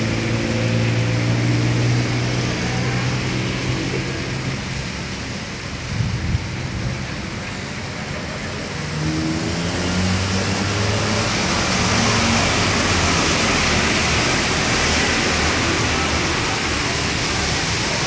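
Street traffic at an intersection: vehicle engines pass, one with a rising engine note as it pulls away about nine seconds in. A steady hiss grows stronger in the second half.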